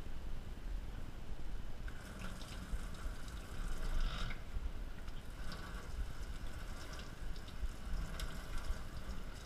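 Water from a kitchen sink's pull-out spray head spattering onto a smartphone and the stainless steel sink, setting in about two seconds in and strongest around four seconds.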